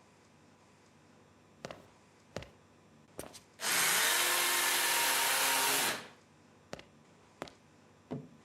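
A few light clicks, then a vacuum cleaner motor switched on: it spins up, runs steadily for about two seconds and winds down. A few more clicks follow.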